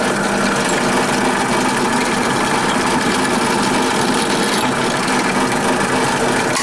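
Pillar drill motor running steadily while the drill bores the grub screw hole in the zinc-aluminium flywheel casting; it stops at the very end.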